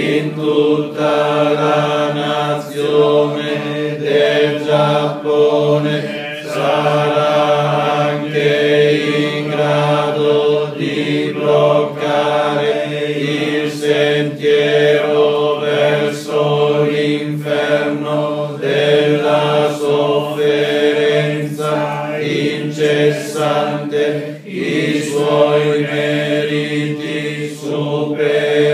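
A Buddhist congregation led by a priest chanting in unison on one steady pitch, a continuous monotone drone with brief breaks for breath.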